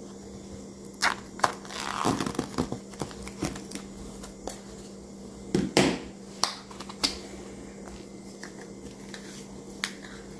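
Plastic cling film crinkling and crackling as it is stretched and pressed around a metal cake pan, with scattered light clicks and taps; the handling quietens after about seven seconds.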